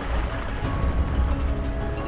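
Background music with held notes over a heavy bass.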